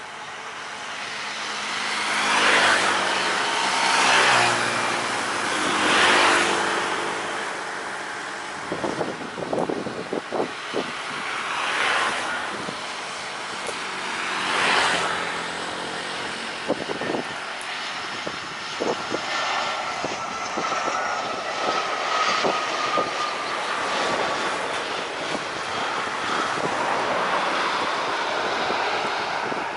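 Jet airliner engines on landing approach and touchdown: the engine noise swells and fades several times, with scattered brief crackles. In the second half a thin whine slowly falls in pitch as the aircraft rolls out on the runway.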